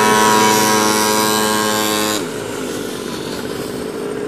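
Pocket bike's small two-stroke engine running flat out as it passes. The high, steady whine falls in pitch and level about two seconds in as the bike moves away, and a fainter engine hum carries on.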